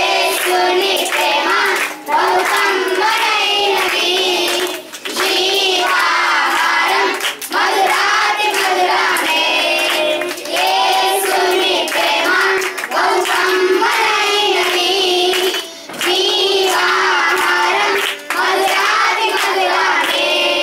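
Group of young boys singing a Telugu Christian song in unison into a microphone, clapping their hands along, with brief pauses between phrases.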